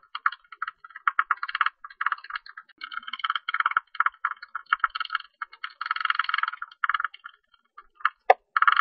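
Greater tube-nosed bat calling: rapid trains of short, high chirps and clicks in bursts of about a second, separated by brief gaps, with one sharper click near the end.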